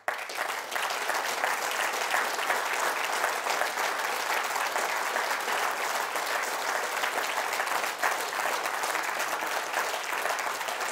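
Audience applauding: dense, steady clapping from a crowd that breaks out all at once.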